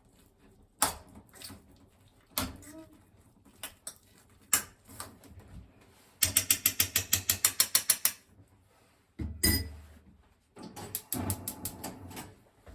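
Kitchen clicks and knocks while cooking. Single sharp clicks are followed by a fast, even run of about fourteen clicks in under two seconds, then a louder knock and some light clatter.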